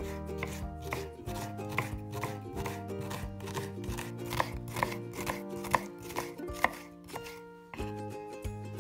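A kitchen knife slicing whole onions into rings on a wooden cutting board: a steady run of sharp chops, about three a second, that stops near the end.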